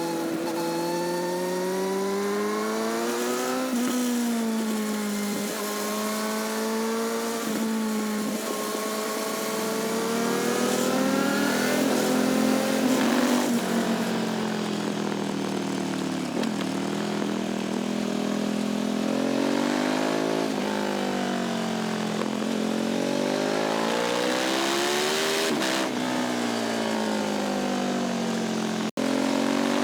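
Sport motorcycle engine and exhaust heard close to the tailpipe while riding. The pitch climbs under acceleration and drops back at each gear change or roll-off, over and over. There is a brief cut-out near the end.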